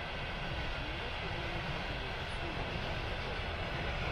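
Container freight train rolling past, a steady rumble of wheels on the rails.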